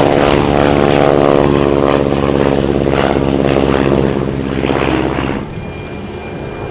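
Radial engines and propellers of Stearman biplanes passing low and close, loud and steady, then falling away sharply about five seconds in.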